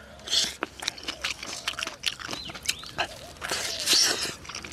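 Close-up eating sounds of a man with a mouthful of spicy stir-fry: chewing and wet lip smacks, with a short hissing slurp just after the start and a longer one about three and a half seconds in.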